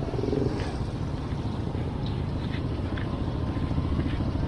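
A motor vehicle engine running steadily at low revs amid street noise, with a few faint clicks.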